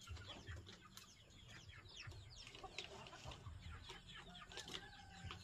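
A flock of chickens clucking softly while feeding on scattered grain: many short, quick calls, with a longer held call near the end.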